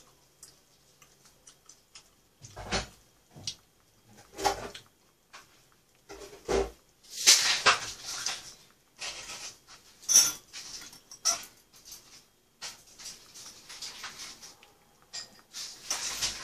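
Scattered short clinks and knocks of a spoon and chopsticks against bowls and a pan, mixed with sounds from a small pet dog. There are several heavier thuds a few seconds in and a brighter clatter around the middle.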